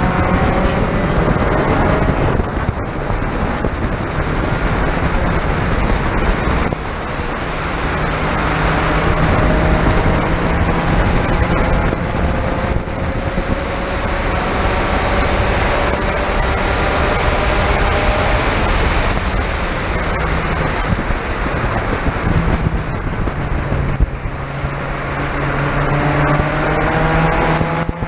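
On-board sound of a Spec Racer Ford Gen3's four-cylinder engine under hard acceleration. Its revs climb in long pulls, broken by gear changes, over a steady rush of wind noise.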